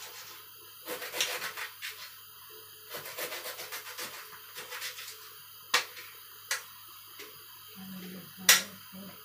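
Kitchen prep sounds: a knife scraping and tapping on a cutting board, with a few sharp knocks, the loudest near the end as ingredients go into the wok.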